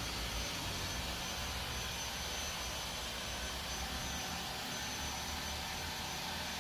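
360 S6 robot vacuum running, its suction fan giving a steady even whoosh with a faint high whine.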